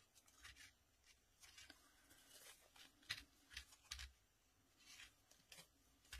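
Faint rustling and crinkling of a crinkle ribbon being scrunched between the fingers, in a string of short, soft crackles.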